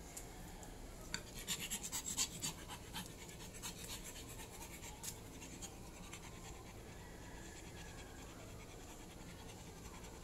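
A pug panting, with a flurry of small sharp clicks and scratches between about one and five seconds in.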